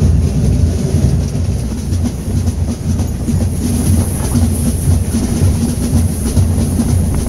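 Binche carnival drums: massed side drums and a bass drum beating the steady, rattling rhythm that the Gilles dance to.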